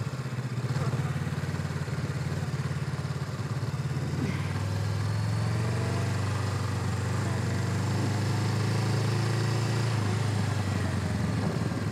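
Motorcycle engine running steadily, with no revving.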